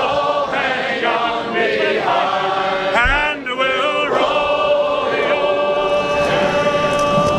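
Soundtrack music: a choir singing long held notes.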